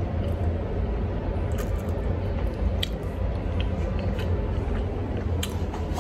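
Close-up chewing of a lox bagel with cream cheese: scattered short wet mouth clicks over a steady low rumble.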